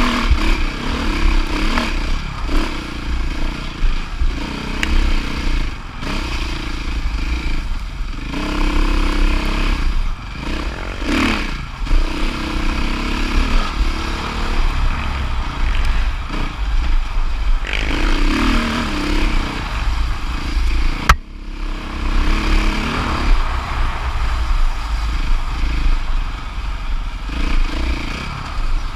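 Dirt bike engine being ridden hard, its note rising and falling again and again as the throttle is opened and closed, over a constant low rumble. One sharp knock comes about two-thirds of the way through.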